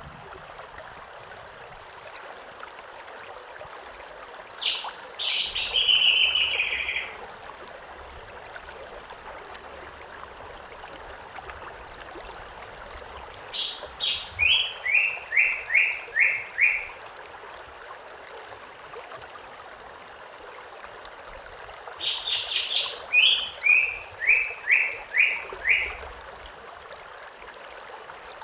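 A songbird sings three phrases about eight seconds apart, each a couple of high notes followed by a quick run of five or six repeated notes stepping down in pitch, over the steady rush of a flowing stream.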